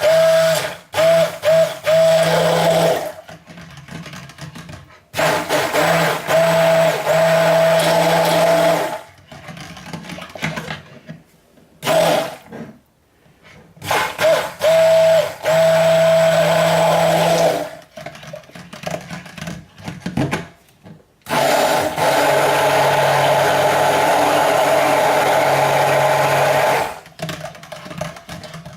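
Stick blender running in raw soap batter of oils and lye solution, bringing it to trace: four runs of a few seconds each with short pauses between, the last the longest.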